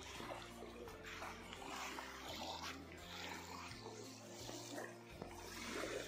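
Soft background music with held low notes that change every second or so, over river water lapping against a sandy bank.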